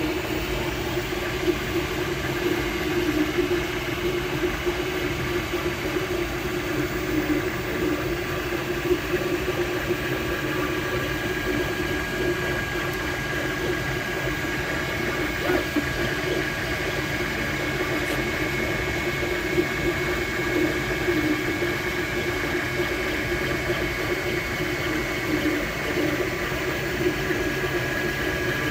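MakerBot Replicator desktop 3D printer running as it prints, a steady mechanical whir with a thin steady whine that grows stronger about halfway through.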